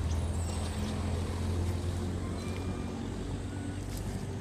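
Steady low hum of an engine running, easing off and dropping lower near the end, with a few faint short high squeaks about halfway through.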